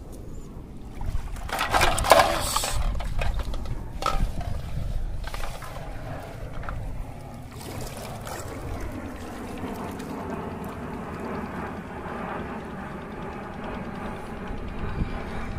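Splashing and sloshing in shallow water during the first half, then the steady drone of aircraft engines as three aircraft fly over in formation, the pitch slowly sliding up and down.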